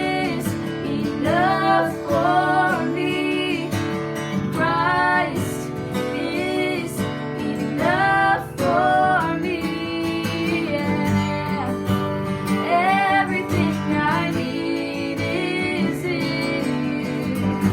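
A song with strummed acoustic guitar and a woman's singing voice.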